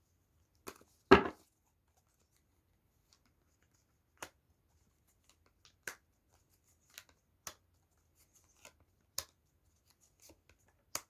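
Tarot cards being handled on a table: a scattered series of sharp single snaps and taps as cards are drawn from the deck and laid down, the loudest about a second in.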